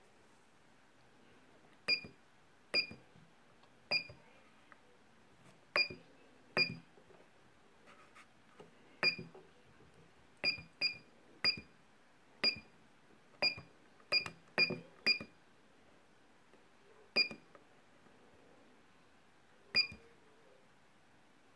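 BUSE BS 100 bus on-board computer (IBIS unit) keypad giving a short, high beep with a click at each key press, about sixteen times at an irregular pace as line and stop numbers are keyed in.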